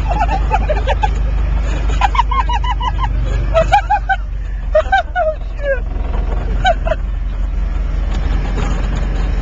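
Cummins 4BT four-cylinder diesel engine running with a steady low drone. Over it come several short bursts of rapid, rising-and-falling high calls, each a quick run of five or so notes.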